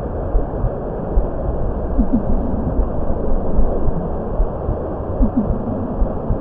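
Steady low, rumbling ambient sound bed with faint short rising tones about every three seconds.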